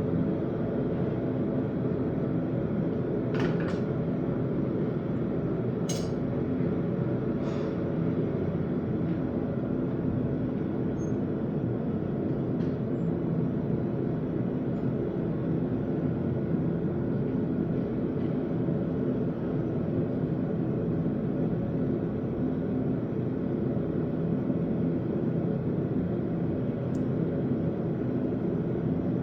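A forge running with a steady, unbroken roar, and a few light metal clinks in the first eight seconds.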